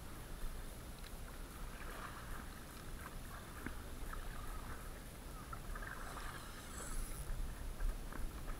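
Water lapping and splashing against a plastic sit-on-top kayak, with steady low wind rumble on the microphone. A few small clicks, and a louder splash about seven seconds in.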